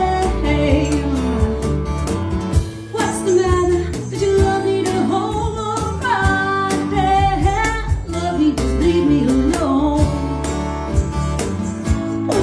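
A band playing a song: a gliding melodic lead line, which may be a voice or an instrument, over guitar and regular drum hits.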